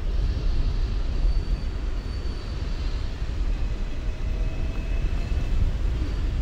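Hong Kong double-decker tram running along its street rails, heard from on board: a steady rumble, with faint thin high-pitched tones drifting in and out.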